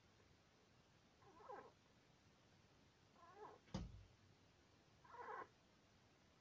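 Syrian hamster squeaking in its sleep: three short, faint squeaks about two seconds apart, with a sharp click just before the third. The owner wonders whether it is only dreaming; a vet listened to its chest and found it okay.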